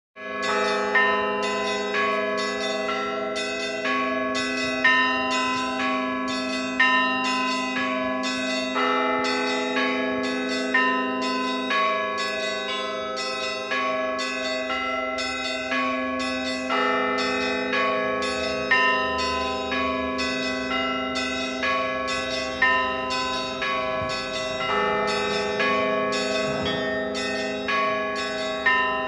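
Russian church bells ringing a continuous peal: small bells struck in quick, rhythmic runs over the sustained hum of deeper bells, with a heavier stroke about every two seconds.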